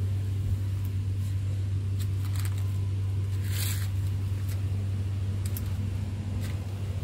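Truck's Mitsubishi diesel engine idling steadily, a low even hum. A few faint clicks and a short rustle come about three and a half seconds in.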